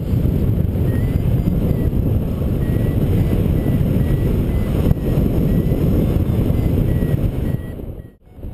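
Wind buffeting the microphone of a paraglider pilot's camera in flight: a steady low rumble. Faint short beeps repeat about every two-thirds of a second, in the way a paragliding variometer signals lift. Near the end the sound cuts out briefly.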